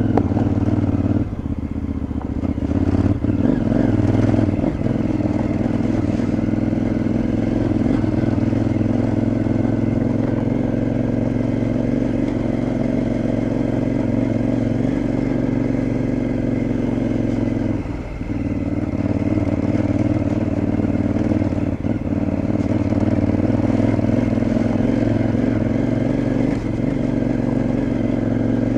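KTM 950 Adventure's V-twin engine running under steady throttle, its note shifting a little in the first few seconds and dropping off briefly about two-thirds of the way through as the throttle is eased.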